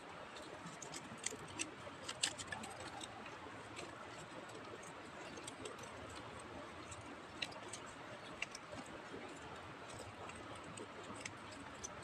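Small twig campfire crackling as it is tended by hand: faint, irregular sharp clicks and snaps over a low steady hiss, with a cluster of louder ones a second or two in.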